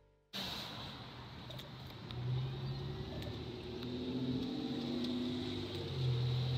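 Street traffic: car engines running, with a low rumbling hum that swells twice and a thin steady high tone over it. The sound cuts in suddenly just after the start.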